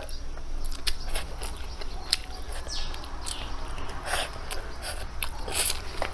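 A person chewing and eating with the mouth close to the microphone: irregular wet smacks and sharp clicks.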